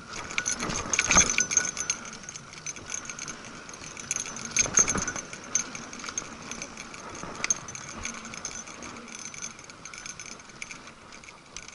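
Mountain bike rattling along a dirt singletrack: a dense clatter of chain and frame with tyre noise on dirt and dry leaves, and heavier jolts about a second in and again near five seconds.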